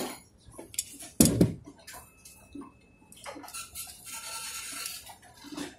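Small metal parts clicking and knocking as a pump head and bracket are fitted to a DC gear motor by hand, with one louder knock about a second in, then a softer hiss for a couple of seconds.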